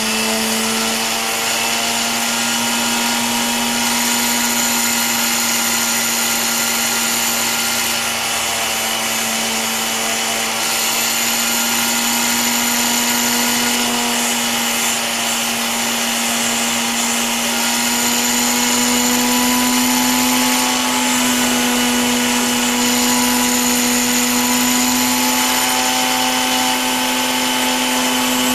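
Foredom flexible-shaft rotary tool running at steady speed with an 800-grit bristle polishing disc, giving a steady whine as a small brass clock wheel is held against it to take off the burrs and polish it.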